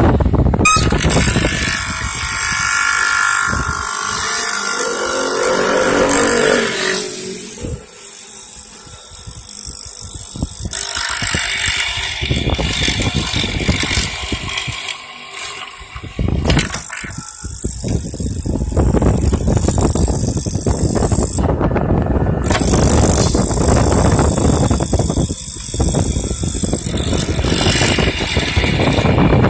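Electric wood mortising machine running and cutting into wood: steady motor noise with the chisel chewing through the timber, dropping quieter a couple of times between cuts before picking up again.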